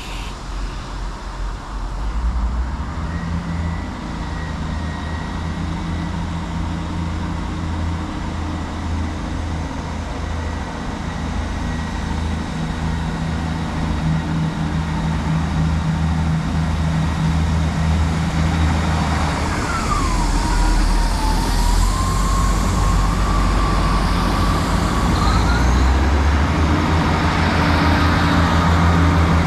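Diesel train engine running with a steady low drone that grows louder, with a high squeal about two-thirds of the way through that dips in pitch, then rises again and holds for several seconds.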